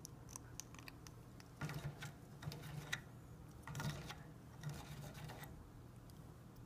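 African grey parrot rubbing and scraping its beak along a wooden perch, in about four short scratchy bouts.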